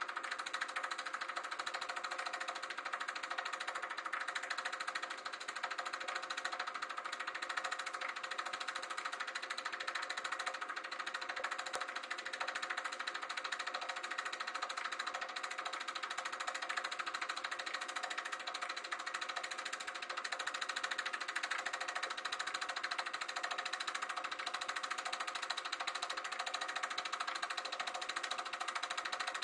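Sankyo Dualux 1000 movie projector running: a steady, fast mechanical clatter from the film transport over an even motor hum.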